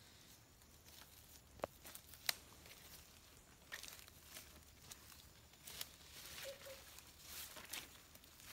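Faint rustling and crackling of footsteps through dry leaves and undergrowth, with a few sharp snaps scattered through.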